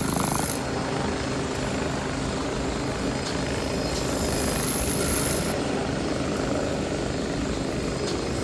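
An engine or heavy machine running steadily, with a fast low throb.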